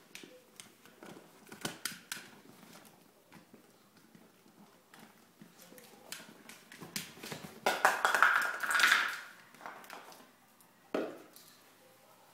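A capped juice bottle knocked, pushed and scraped about by a small dog trying to get at it: scattered clicks and taps, then a louder run of clattering knocks about eight seconds in and one sharp knock near the end.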